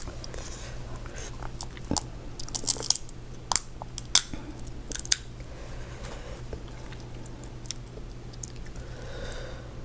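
Close-up eating of a crab leg: several sharp cracks and snaps of shell being broken open, clustered in the first half, with chewing in between and after.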